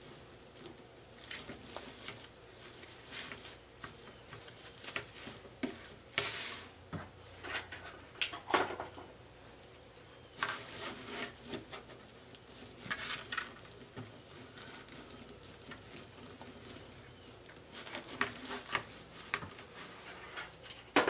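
Plastic deco mesh rustling and crinkling in irregular short bursts as it is handled and twisted into place on a wreath.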